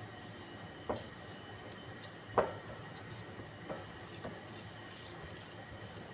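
Spoon stirring a wet marinade of spices, lemon juice and olive oil in a bowl, with a few light clinks of the spoon against the bowl, the loudest about two and a half seconds in.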